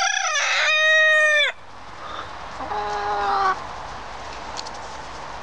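Hens calling: a loud, drawn-out squawk in the first second and a half that holds its pitch and then drops away, followed by a shorter, quieter call about three seconds in.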